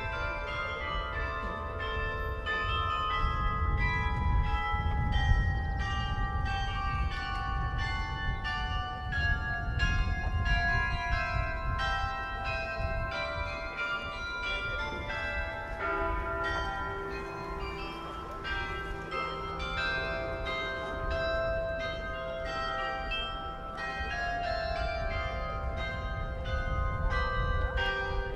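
Church bells pealing, many overlapping strikes a second ringing on into one another, over a low rumble.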